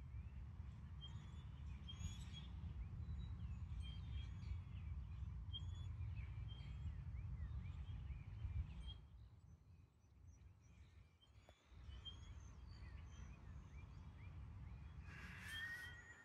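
Songbirds chirping and calling in many short, quick notes over a low steady rumble. The rumble drops away for a few seconds around the middle, and one louder bird call comes near the end.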